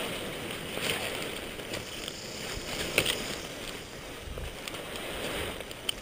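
Rustling of parachute fabric, lines and dry grass as the tangled vulture and the pilot shift about, with a sharp click about three seconds in and another near the end.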